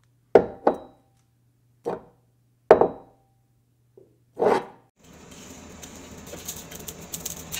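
Intro title sound effects: a handful of sharp hits, some with a brief ring, and a final swelling whoosh, over a low steady hum. The hum cuts off about five seconds in, and a steady background noise with faint ticks follows.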